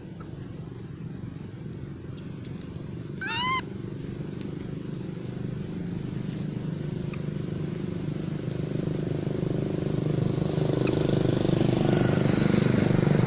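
A motor engine running steadily, growing louder over the last few seconds. About three seconds in, a monkey gives one short, high squeal that rises and falls.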